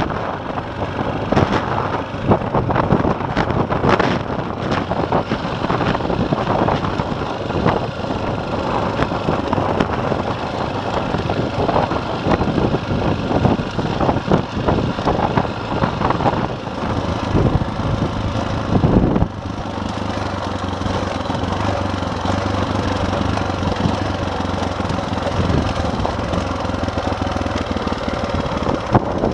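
Single-cylinder four-stroke KTM dirt bike engine running under way on a rough scrub track, with frequent knocks and rattles from the bumps. A little under two-thirds through, the jolting stops and the engine settles into a steady, even note.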